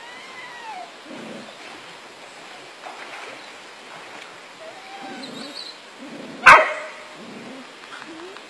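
A dog yipping and whining in short calls that rise and fall in pitch, with one loud sharp bark about six and a half seconds in.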